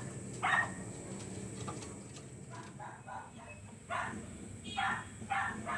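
A dog barking in short, single barks about every half second to second, with a quicker run of quieter barks about three seconds in.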